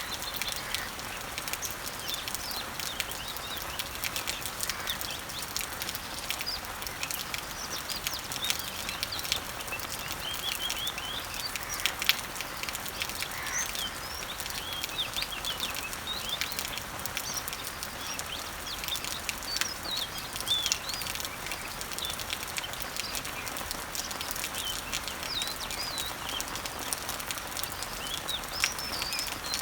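Rain falling on garden leaves and trees: a steady hiss with many small drop ticks, and one sharper tap about twelve seconds in. Birds chirp and call over it, in short rising and falling notes, all the way through.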